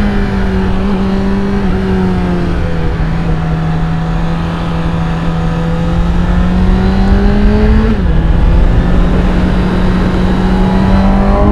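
2017 Suzuki GSX-S750's inline four-cylinder engine under way on the stock exhaust, its note climbing slowly with a sudden drop in revs about eight seconds in, then climbing again, over a rush of wind noise.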